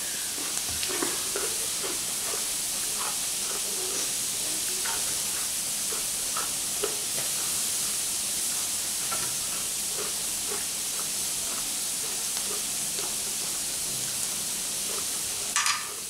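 Squid tentacles sizzling on a tabletop electric grill plate: a steady hiss with light clicks of chopsticks on the food. A brief louder crackle comes near the end.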